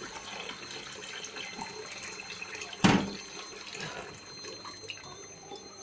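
Kitchen tap running as a glass is filled with drinking water, with one sharp knock about three seconds in.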